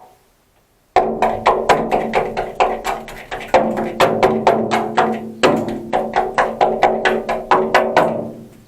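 A rapid run of sharp, ringing strikes, about four a second, with a steady pitched ring sounding beneath them. It starts suddenly about a second in, comes in two or three bursts that each begin louder and tail off, and dies away near the end.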